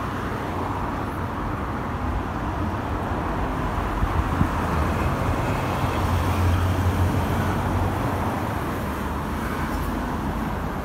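Steady street traffic, cars driving past, with a van's engine hum swelling as it passes close by just past the middle. One short knock a little after four seconds in.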